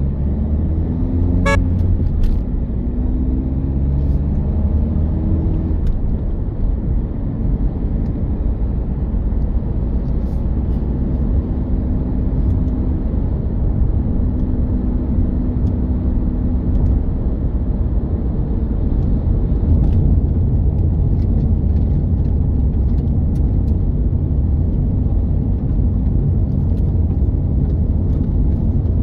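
Car being driven on a road: a steady low rumble of engine and road noise, with the engine's pitch gliding up and down now and then as the speed changes.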